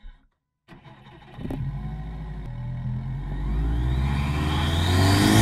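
Intake sound of a 2015 Subaru WRX STI's turbocharged 2.5-litre flat-four, picked up by a microphone inside the intake. It comes in about a second in, and the revs climb steadily, the note growing louder toward the end, with a faint rising turbo whistle partway through.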